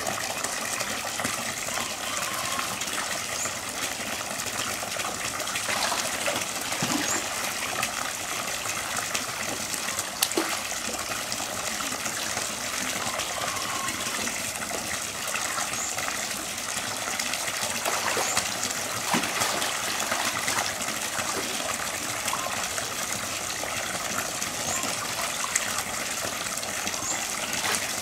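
Steady rush and splash of churning water, with Asian small-clawed otters splashing about in it and an occasional sharp click, the clearest about ten seconds in.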